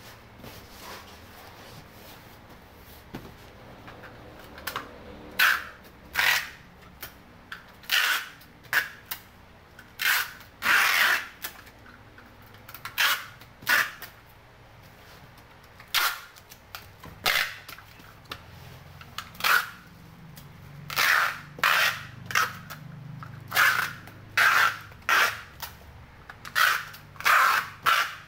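Clear packing tape being pulled off the roll and wrapped around a cardboard box: about twenty short rasping pulls, each about half a second, coming every second or so from a few seconds in.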